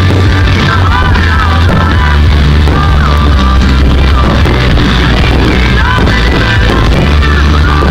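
A rock song with a singing voice over a steady, heavy bass line.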